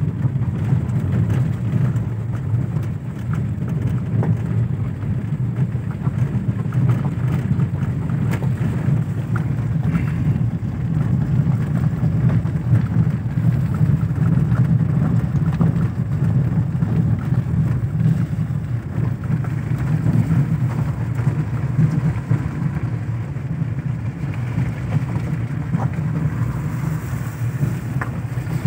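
Car driving on a wet road, heard from inside the cabin: a steady low engine and tyre rumble, with a few faint ticks.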